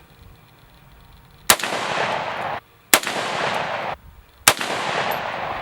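Three sharp rifle shots from a 6mm ARC AR-15, about a second and a half apart, each followed by about a second of echoing report.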